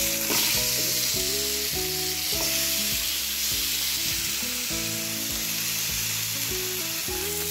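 Marinated chicken pieces sizzling in hot oil in a grill pan as they shallow-fry, a steady frying hiss, with a tune playing underneath.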